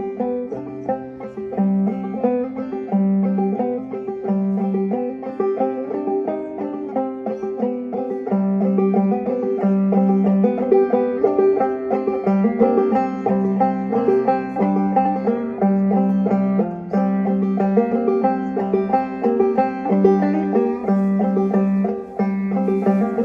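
Solo clawhammer banjo playing a continuous, dark folk tune, with a drone note ringing steadily under the melody.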